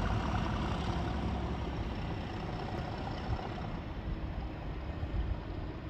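English Electric V12 diesel of a Class 37 locomotive (97303) rumbling as it pulls away, slowly fading into the distance.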